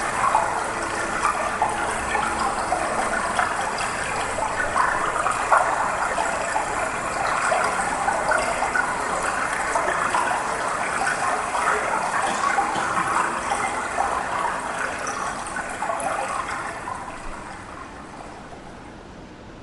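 Rushing, trickling water sound in the performance's soundtrack, fading out over the last few seconds.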